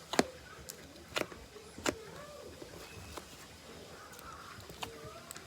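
Slime being pressed and worked in its container, giving a few sharp pops and clicks, the loudest three spaced about a second apart early on, with smaller ticks later.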